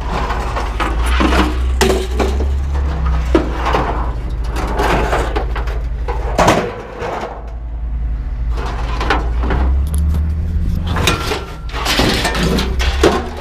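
Scrap metal being thrown off a load, with repeated clanks and bangs of metal hitting metal at uneven intervals over the steady low hum of a running engine.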